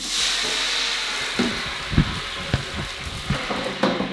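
A hot pot sizzling: a hiss that starts suddenly and slowly dies down, with a few knocks of a utensil against the pot.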